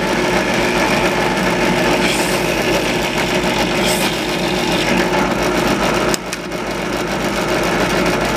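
Benchtop drill press motor running steadily while a step drill bit is fed down through light plywood, drilling pattern holes. The bit cutting the wood adds short scraping hisses about two and four seconds in.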